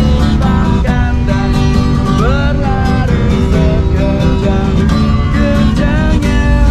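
A man singing loudly while strumming an acoustic guitar.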